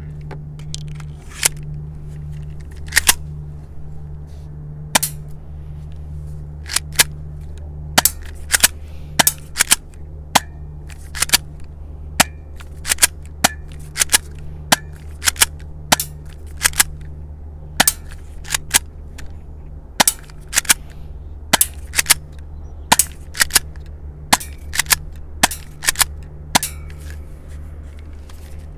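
Academy Kahr Arms TP45 airsoft BB pistol firing shot after shot, each a sharp crack, irregularly spaced about one or two a second with some quick pairs.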